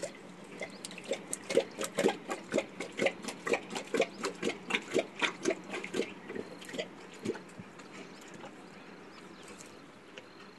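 Asiatic lion lapping water from a concrete tank: a quick, even run of wet laps, about four a second, that dies away after about seven seconds.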